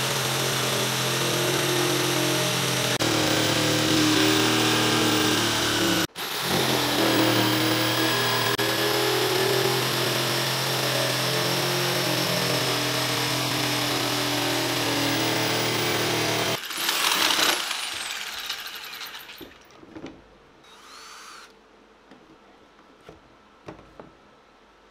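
Corded jigsaw running steadily as it cuts a circle through a wooden board, guided by a homemade pivot jig, with a brief break about six seconds in. The saw stops about two-thirds of the way through, and a few light knocks follow as the work is handled.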